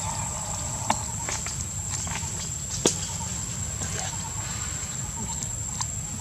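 Macaques moving about on dry leaf litter: a few sharp snaps and crackles of dry leaves and twigs, the loudest about one and three seconds in, over a steady high-pitched hum and a low background rumble.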